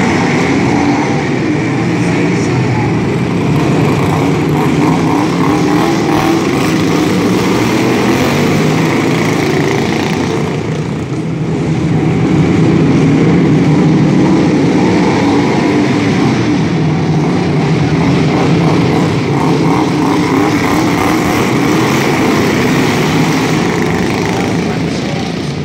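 Engines of several racing riding lawn mowers running together at speed in a steady drone, dipping briefly about eleven seconds in and swelling again as the mowers come round.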